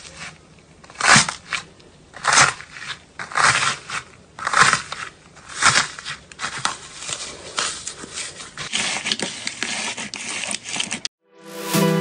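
Crunchy slime with a crisp top layer being pressed and kneaded by hand in a plastic tub: crackling, crunching bursts about once a second, turning into steadier, denser crackling later. It cuts off suddenly about a second before the end, and music starts.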